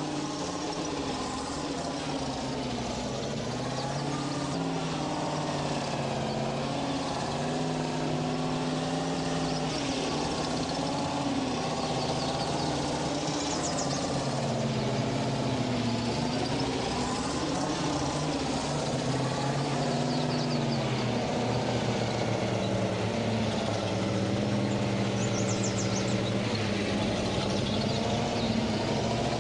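GAZ truck engine running steadily, its pitch rising and falling slowly as the revs drift.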